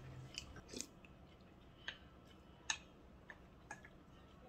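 A few faint, sharp clicks and taps, roughly one a second, made while eating ramen at the table, with no slurping.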